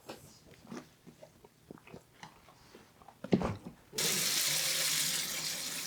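Scattered small knocks and handling clicks. About two-thirds of the way in, a kitchen tap starts running in a steady rush.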